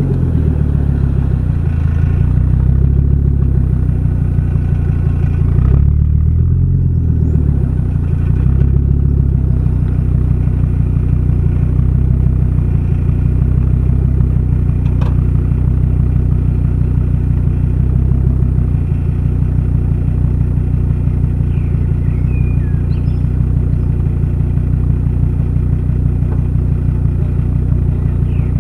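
Fiat Coupe 20v turbo's inline five-cylinder engine and exhaust running, its engine speed rising and dipping a little over the first several seconds, then holding steady.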